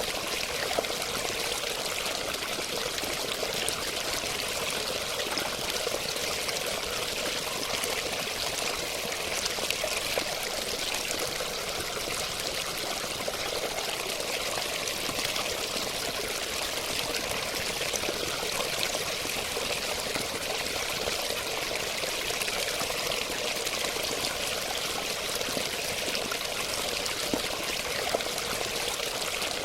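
Running water, a steady splashing, pouring rush, even and unbroken throughout.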